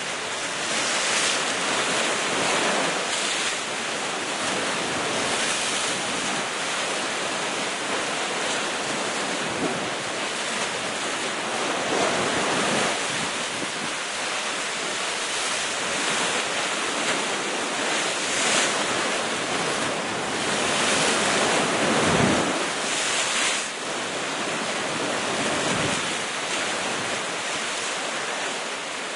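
Sea waves breaking against the rocks at the foot of a cliff: a continuous rushing wash that swells into heavier surges every few seconds, the strongest about two-thirds of the way through.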